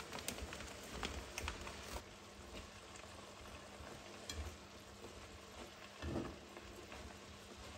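Mushrooms, peppers and gnocchi sizzling faintly in a stainless steel frying pan while a slotted spatula stirs them. There are a few sharp clicks in the first two seconds and a dull knock about six seconds in.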